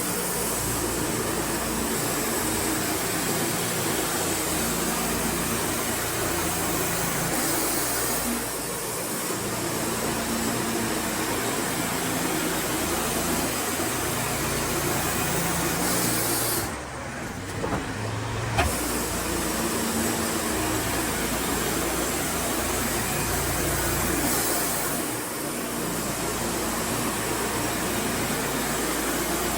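Wood-Mizer LT40 band sawmill running under load, sawing pine boards with a steady machine drone. The level dips briefly three times, most deeply about seventeen seconds in, and a sharp click closes that lull.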